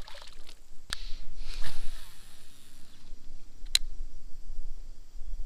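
Low wind rumble on the microphone, with two sharp clicks about three seconds apart and a short rush of noise between them.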